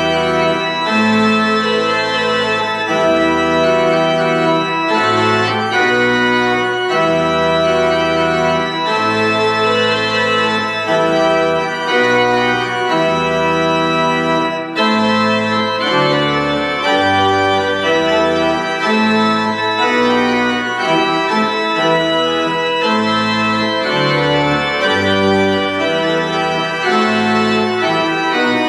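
Church pipe organ playing a slow hymn-like piece in sustained full chords over deep bass pedal notes, the chords changing every second or two.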